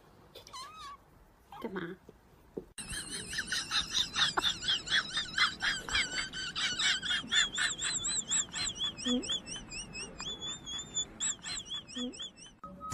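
Rapid, high-pitched warbling chirps like a songbird's trilling song, repeating several times a second, starting suddenly about three seconds in and running until just before the end. Before that, a few faint short mews.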